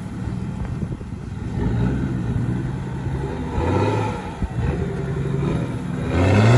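Engine of a tube-frame off-road prototype buggy working through a dirt rut, the revs rising and falling several times and climbing to the loudest point near the end.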